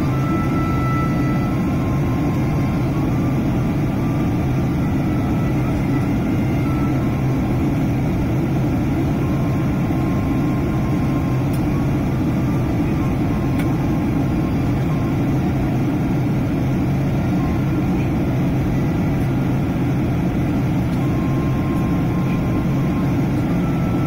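Steady cabin drone inside a Boeing 787-8 airliner on descent: engine and airflow noise with a deep rumble underneath.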